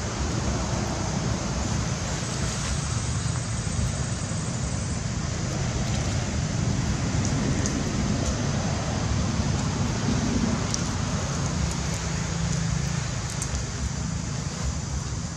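Steady outdoor background noise: a continuous low rumble with a fainter hiss above it and no animal calls standing out.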